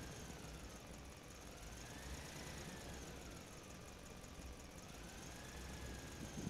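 Small electric gear motors of a homemade four-wheel-drive toy car whining faintly as it drives over rough asphalt, the pitch slowly rising and falling.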